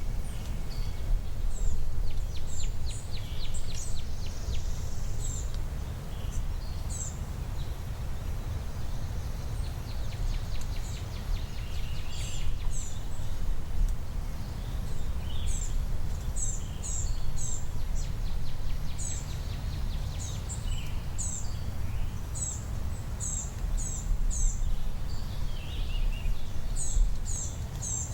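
Songbirds chirping over and over in short, high notes, over a steady low rumble of wind on the microphone.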